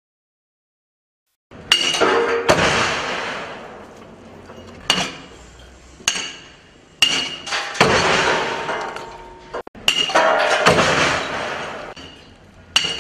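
Repeated heavy impacts of a shock table struck by its pendulum, about eight blows at irregular intervals, each followed by a metallic clatter and ringing that dies away over a second or two.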